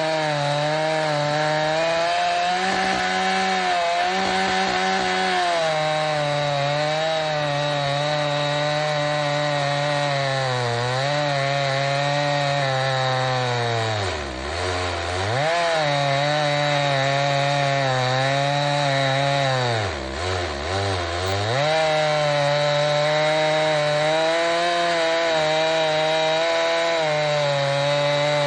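Chainsaw in an Alaskan chainsaw mill ripping through a large maple round, running at high revs under load. Twice, about halfway through and again a few seconds later, the engine bogs down sharply in pitch and then picks back up.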